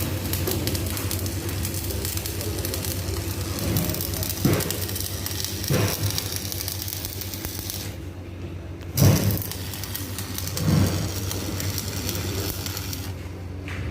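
Electric arc welding: the arc crackles and sizzles steadily over a low hum, breaking off twice for about a second. A few dull knocks come in between, the loudest about two-thirds of the way in.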